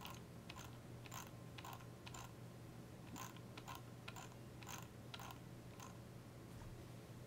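Faint, irregular clicking of a computer mouse and its scroll wheel, about a dozen clicks spread over five seconds, over a low steady hum.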